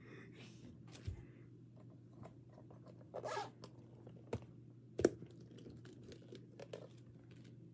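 Quiet handling of small objects: scattered light clicks and rustles, with a short scraping burst about three seconds in and a sharper click about five seconds in.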